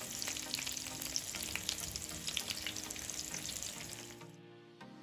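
Beef meatballs (köfte) sizzling and crackling as they fry in shallow oil in a frying pan while being turned over with tongs. The frying sound fades away about four seconds in, leaving soft background music.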